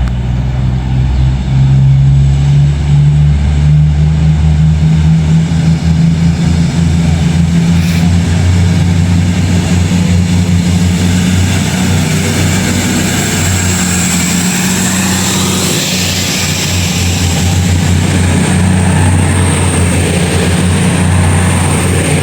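East Midlands Railway Class 222 Meridian diesel multiple unit pulling away, its underfloor diesel engines running under power with a loud, steady low drone. A high hiss and a thin whine build up from about halfway through as it moves off.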